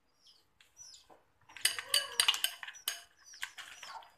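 Metal spoon stirring and scraping a thick curry powder paste in a glass bowl, a dense run of clicks and scrapes starting about a second and a half in. Small birds chirp a few times in the background.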